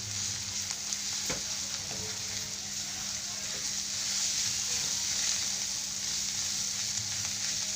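Bitter gourd chutney sizzling steadily in a pan, with a couple of light clicks about a second and two seconds in.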